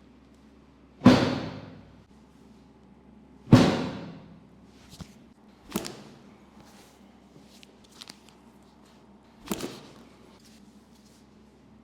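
Heavy thuds of chiropractic adjustment thrusts, four in all with the loudest about three and a half seconds in, each ringing out briefly, with a few light knocks and clicks between them.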